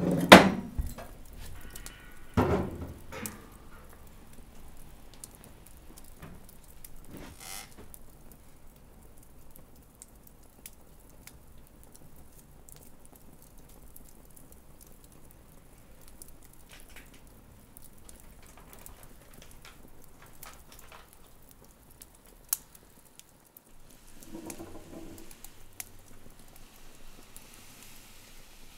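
Small-room quiet with scattered small clicks and ticks, and two louder knocks in the first three seconds.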